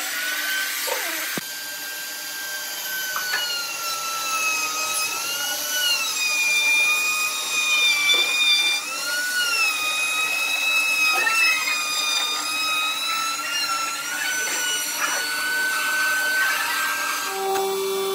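Compact trim router running with a high whine that dips and rises in pitch as it cuts a groove into a wooden board. Music starts near the end.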